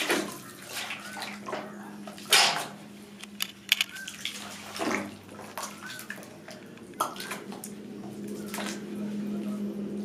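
Hands and a stirring tool sloshing and splashing in a bucket of wet black gunpowder slurry for coating fuse thread, with irregular splashes and knocks against the bucket, the loudest about two seconds in. A low steady hum runs underneath, dropping out for a while in the middle.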